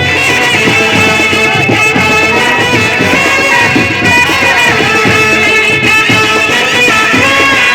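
Loud Indian band music in a Bollywood and folk style: a sustained melody over steady drumming.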